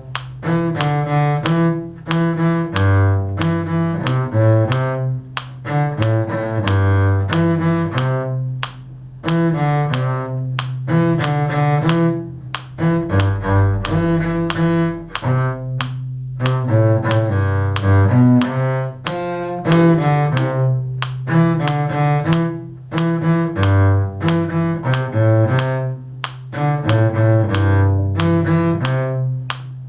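Bowed string instrument playing a steady, rhythmic middle harmony part in a low register, in short phrases separated by brief breaks.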